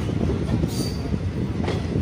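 Indian Railways passenger train running: a steady low rumble of the moving coach, with a couple of sharp clicks about a second apart from the wheels on the track.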